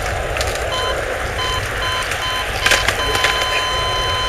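Electronic beeps, a steady pitched tone pulsing about twice a second, that merge into one long unbroken tone about three seconds in. Under them is the rolling rumble of skateboard wheels on the court, with a sharp clack near three seconds.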